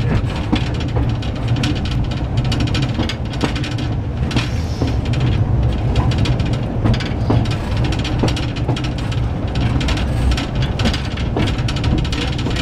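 Narrow-gauge tourist train running at a steady pace, heard from aboard an open carriage: a continuous low rumble with a dense, irregular clicking and rattling of the carriage on the track.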